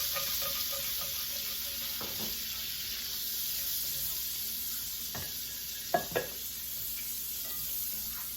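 Butter sizzling in a frying pan while the browned chicken drippings are stirred and scraped loose from the bottom with a utensil. Two sharp knocks come close together about six seconds in.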